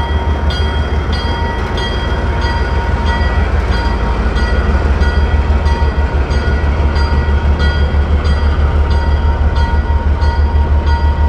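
ALCO S-6 switcher's six-cylinder turbocharged diesel engine working hard, a deep rapid throb, as it hauls a heavy train up a grade at walking speed. A bell rings steadily about twice a second over it.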